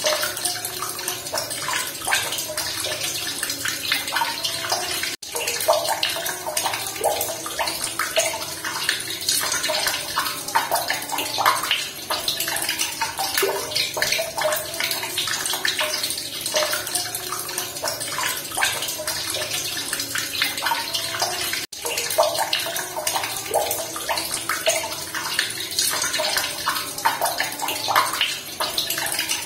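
Continuous running water, close and splashing, with small gurgles and drips in it. It drops out for an instant twice, about 5 seconds in and again near 22 seconds.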